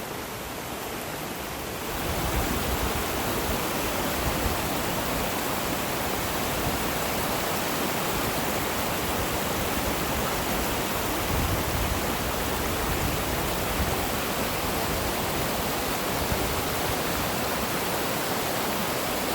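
Rushing water from a small waterfall, a steady hiss that gets a little louder about two seconds in.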